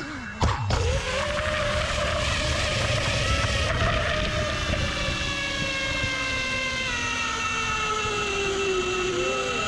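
Armattan Badger FPV quadcopter's motors and props whining steadily at low speed while it sits on the road, the pitch slowly sinking over several seconds; the pilot blames the battery being pushed too far. A short knock comes about half a second in as it settles.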